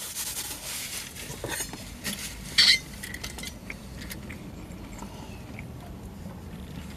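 An insulated metal water bottle being handled, with light clinks and paper-napkin rustling and one sharper clink about two and a half seconds in.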